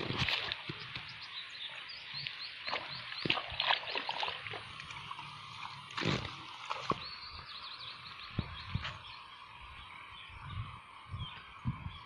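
Hand tool digging into wet paddy-field mud, with a few knocks and thumps, over rapid runs of short high chirps from small animals calling in the field.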